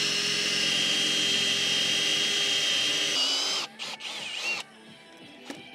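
Power drill spinning a hole saw down into a pressure-treated wood board: a steady motor whine that rises slightly in pitch, then stops about three and a half seconds in. The cut stops where the hole saw is too shallow to go all the way through the board. A few faint short noises follow.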